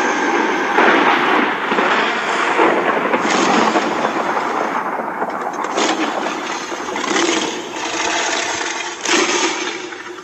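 Storm sound effect: a dense, crackling rush that swells in repeated sudden surges every one to two seconds, then fades away near the end.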